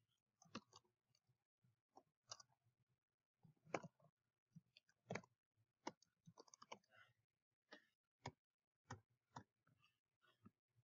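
Faint, irregular clicking of computer keyboard keys as a short line of text is typed one key at a time.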